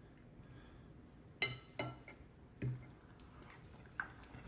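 A few light clinks of metal forks against a ceramic dinner plate, spaced irregularly from about a second and a half in.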